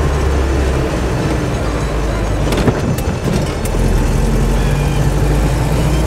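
Car engine running under way, heard from inside the cabin with a steady low hum. A few short clicks or knocks come about halfway through, after which the engine note settles lower.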